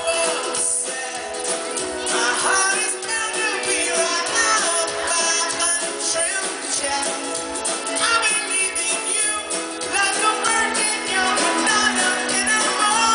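Live pop-rock band playing: amplified ukulele strumming over a drum kit with a steady beat, and a man singing lead. The audience recording has almost no bass.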